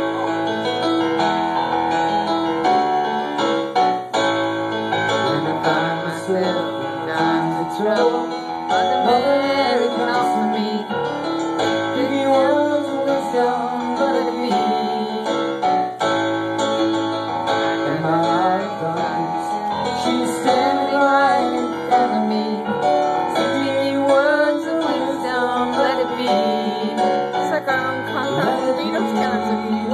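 Live piano music played without a break, recorded on a phone.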